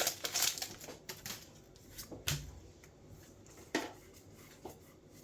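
Lorcana trading cards being handled and laid down on a table: faint rustling in the first second, then a few scattered soft clicks and taps.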